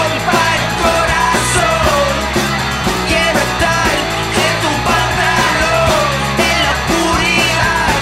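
Rock'n'roll soundtrack music: a band with sung vocals over a steady drum beat.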